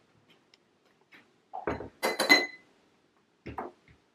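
Ceramic mugs and a glass bottle handled on a wooden kitchen worktop: a few knocks and clinks, the loudest a sharp clink with a short ring about two seconds in.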